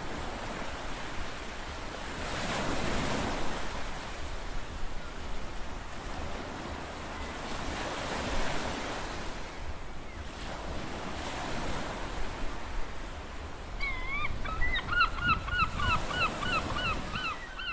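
Sea waves washing onto a shore, swelling and falling back every few seconds. About three-quarters of the way in, a bird starts calling in a quick run of short repeated notes.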